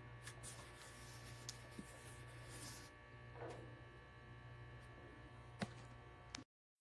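A faint, steady electrical hum with a soft hiss and a few light clicks, cut off abruptly near the end.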